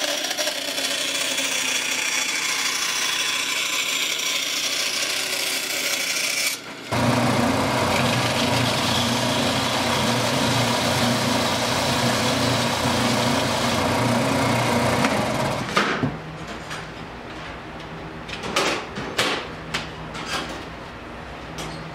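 A bandsaw cutting a thin piece of wood, then, after a brief pause about seven seconds in, an oscillating belt sander running with a steady low hum as the piece's end is trimmed against the belt. The sander stops about sixteen seconds in, followed by light knocks and clicks of wood being handled.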